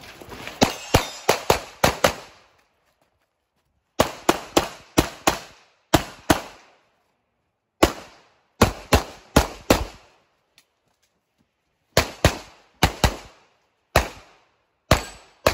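Handgun fired rapidly at targets: quick groups of two to six sharp shots, with gaps of one to two seconds between groups. Each shot has a short echo.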